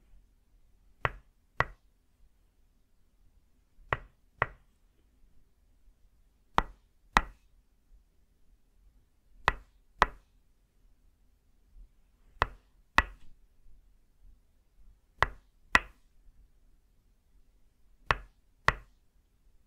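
Tok sen wooden mallet (khon) striking a wooden peg (lim) held against the back in double hits: two crisp knocks about half a second apart, repeated in an even rhythm about every three seconds.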